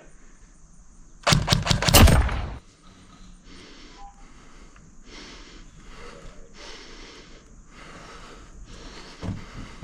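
Airsoft rifle firing a short burst of about half a dozen rapid shots, a little over a second in.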